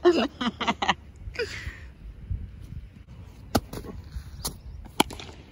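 A man speaking briefly at the start, then three sharp, separate knocks in the second half: the impacts of bat and ball in a street cricket game.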